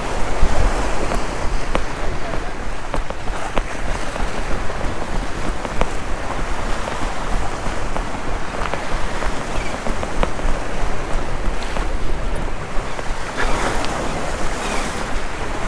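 Steady rush of waves breaking against the rock jetty, mixed with wind on the microphone, with scattered light clicks.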